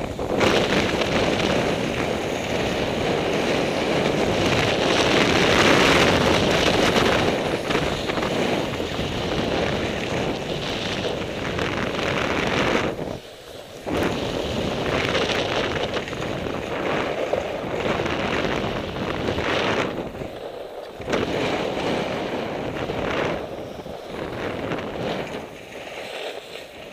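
Wind buffeting the camera microphone and skis hissing over packed snow during a downhill ski run. The rushing noise rises and falls in surges, with a short lull about thirteen seconds in.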